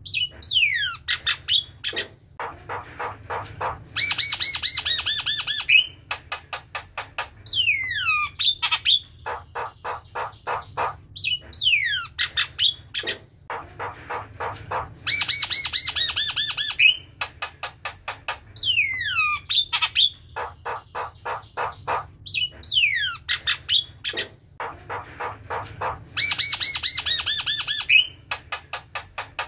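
Javan myna singing its chattering song: runs of fast repeated notes alternate with steeply falling whistles and rapid high trills, the phrases following one another without a break.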